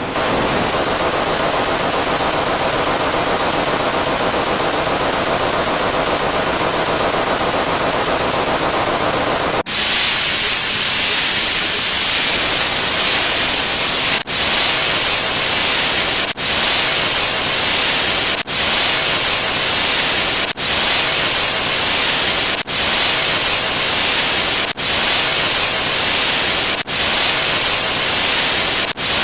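Loud, steady static hiss like white noise. About ten seconds in it turns sharply brighter and hissier, then breaks off for an instant about every two seconds before carrying on.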